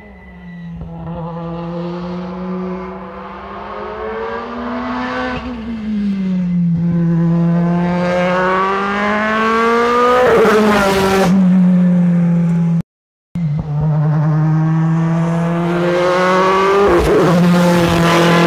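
Rally car engine accelerating hard on tarmac as it approaches. Its pitch climbs and then drops at each upshift, about five seconds in and again around ten seconds, growing louder as the car nears and passes. After a brief silent break about thirteen seconds in, the car is heard accelerating again, with another upshift near the end.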